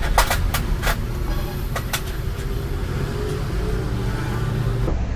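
A handful of sharp light clicks and taps, clustered in the first two seconds, as parts of a BDM programming frame are handled and fitted, over a steady low rumble like traffic or machinery in the background.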